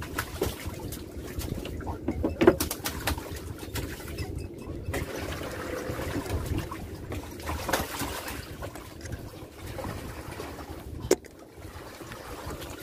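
Water dripping and splashing, with scattered knocks and clatter, as a submerged gill net is hauled into a small boat. A sharp knock comes about eleven seconds in.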